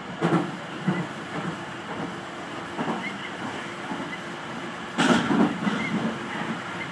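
Tobu 50000 series electric train running at speed, heard from inside the front car: a steady rumble of wheels on rail with irregular knocks, and a louder rush about five seconds in.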